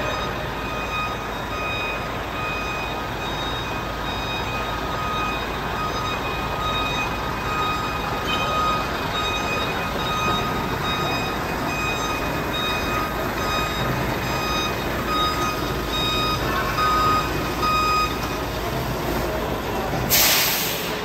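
Semi-truck tractor unit reversing under a drilling-rig trailer, its diesel engine running with a reverse alarm beeping over and over. A short, loud burst of hissing air comes near the end.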